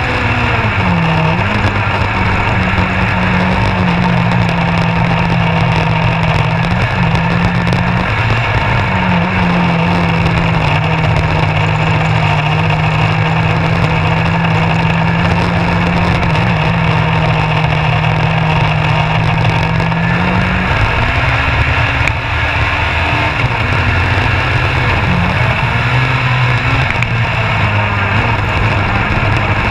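Onboard sound of a Legends race car's Yamaha motorcycle engine running hard up a hillclimb. The engine note holds high and steady for long stretches with a few brief dips in pitch, then drops and wavers over the last several seconds, over a constant rush of tyre and wind noise.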